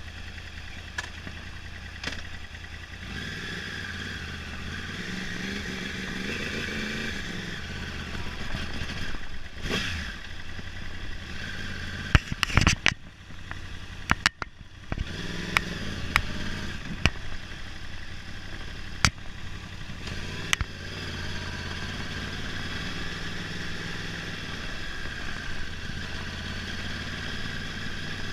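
2011 Yamaha R1's inline-four engine running unevenly and revved a few times, with several sharp pops in the middle and a brief stumble where it nearly dies: the misfire it is being shown for.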